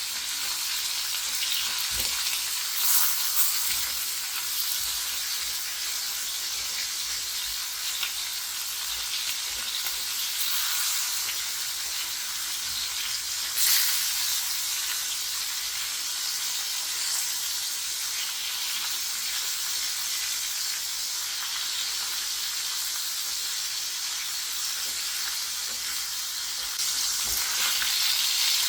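Food frying in hot oil in a pan: a steady sizzle with a few louder crackles now and then, growing louder near the end.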